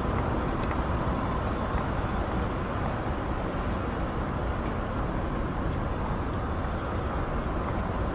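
Steady, continuous noise of distant motorway traffic: tyres and engines blended into one even low rumble, with no single vehicle standing out.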